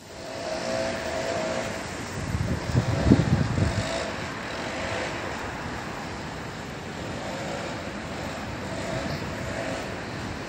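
Outdoor street noise: a steady rush like traffic on a wet road, with a louder low rumble about two to four seconds in.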